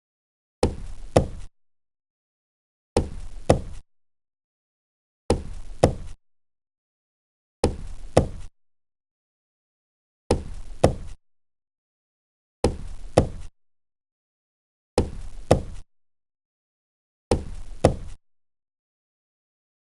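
Two knocks on a table, a second knock about half a second after the first, the same pair repeated eight times about every two and a half seconds with dead silence between.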